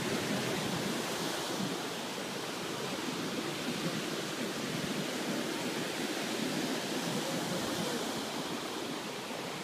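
Ocean surf breaking and washing up a beach, a steady rushing noise, with wind buffeting the microphone.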